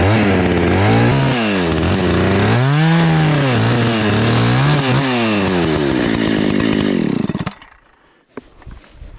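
Husqvarna 288XP two-stroke chainsaw cutting wood, its engine pitch dipping and recovering several times as the chain bites into the cut. About seven and a half seconds in, the saw winds down and stops, leaving a few faint clicks and rustles.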